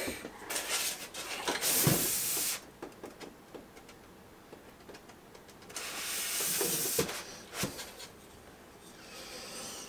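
Rustling and rubbing of packaging as statue parts are taken out of their box, in two spells of a second or two each, with a few light knocks.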